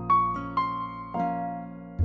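Gentle background music of plucked, harp-like notes. Three notes start in turn, each ringing on and fading.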